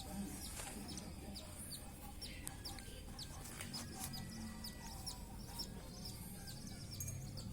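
Parrot chicks giving rapid, short, high chirping begging calls, several a second, as they are hand-fed.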